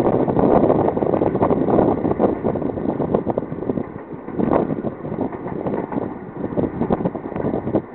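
Long Island Rail Road M7 electric train running past, an uneven train noise mixed with wind buffeting the microphone.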